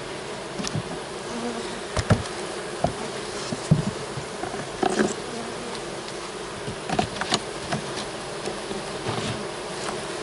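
Honey bee colony buzzing steadily over an open hive, with scattered short knocks and clicks from wooden hive boxes and frames being handled.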